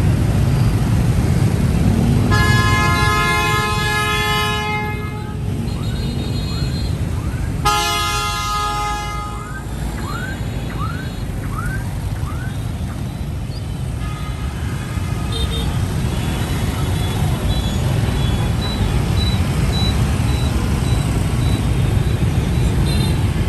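Dense street traffic of motorbikes and cars with a steady low engine rumble throughout. Two long horn blasts sound in the first ten seconds, followed by a run of short rising chirps about once a second and fainter beeps later.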